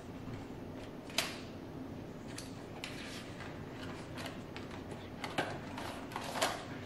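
Cardboard watch box being opened by hand: scattered short scrapes and clicks of card sliding and its inner tray pulled out, with a sharp one about a second in and another near the end.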